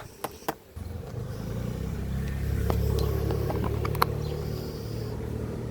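A motor vehicle's engine running with a low steady hum. It comes in shortly after a few sharp clicks, grows louder toward the middle and eases a little, with a sharp click about four seconds in.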